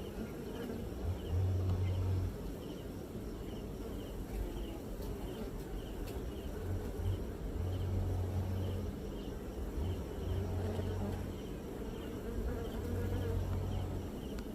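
Honey bees buzzing on the comb, a steady hum, with a low rumble that comes and goes several times.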